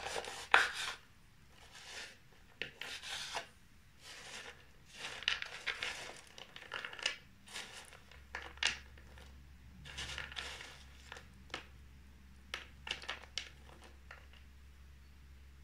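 A knife cutting through king prawns: irregular short scraping strokes and sharp clicks of the blade through the shells, thinning out near the end.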